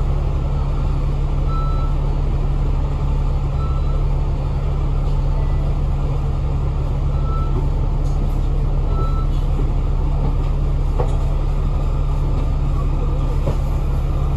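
A Citybus bus heard from inside the cabin while under way: a steady low engine drone with road and body noise. A few short, high beeps come through, about two seconds apart.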